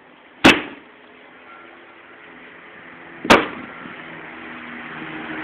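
Axe splitting firewood on a chopping block: two sharp chops about three seconds apart.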